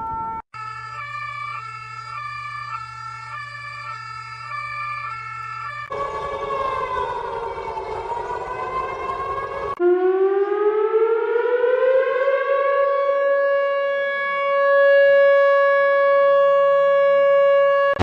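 Emergency alert sirens played one after another. A steady tone is cut off about half a second in; then comes a repeating pattern of stepped alarm tones over a low hum, then a siren wailing down and back up. From about ten seconds in, a siren winds up in pitch and holds one steady tone, the loudest part.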